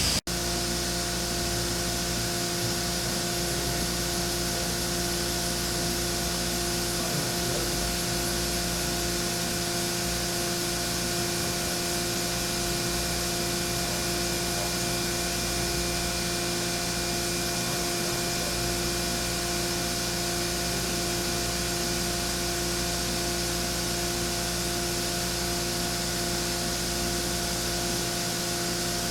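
Mazak Nexus 510C CNC vertical machining center running under power: a steady mechanical hum with several constant whining tones over a hiss.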